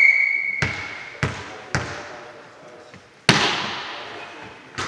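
A volleyball being struck again and again during a rally: five sharp smacks ringing through the gym hall, the loudest about three seconds in. A high steady tone dies away during the first second.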